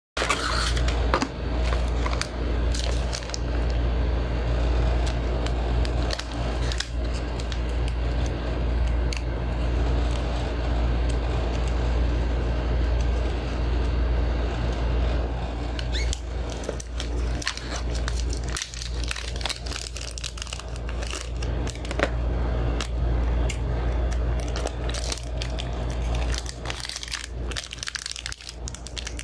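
Paper box inserts and a plastic packaging bag rustling and crinkling in the hands, with many small irregular clicks and crackles, over a steady low hum.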